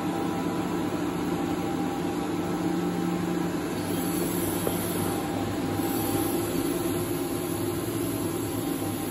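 Commercial induction stove running under a stainless stockpot of water: a steady electrical hum with low buzzing tones over the rush of its cooling fan.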